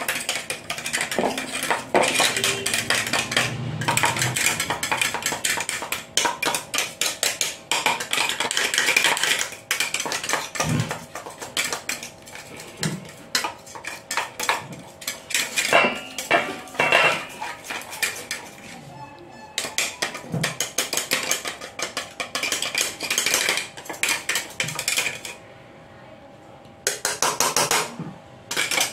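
Knife scraping and tapping inside a small stainless-steel mixer-grinder jar, getting ground biscuit powder out into a steel bowl: quick runs of metal-on-metal scrapes and clinks, with a short pause near the end.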